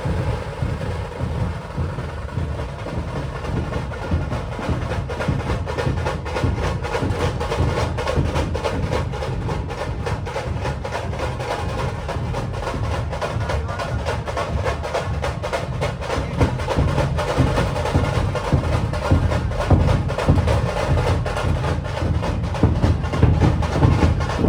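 Dhol tasha ensemble playing: deep dhol drum beats under fast, sharp cracking tasha strokes and rolls. The striking is sparser for the first few seconds, then thickens and grows louder toward the end.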